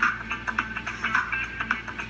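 Background music: a light melody of quick, short notes.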